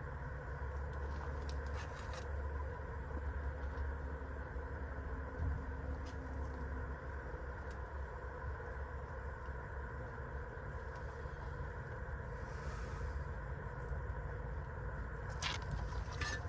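An engine or motor running steadily, a constant hum over a low rumble, with a few faint clicks.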